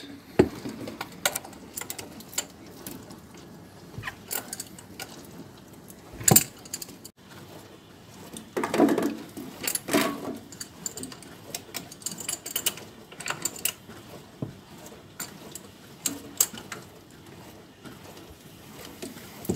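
Irregular metallic clicks, clinks and knocks of an adjustable wrench and brass plumbing fittings being handled as a filtered mini valve is unscrewed from an under-sink angle stop valve. Louder knocks come about six seconds in and a denser clatter about nine to ten seconds in.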